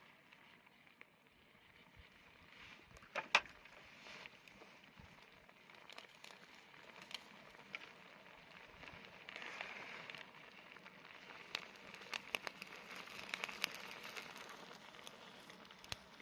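Faint campfire crackling: scattered sharp pops, the loudest about three seconds in, over a soft hiss that swells a little twice in the second half.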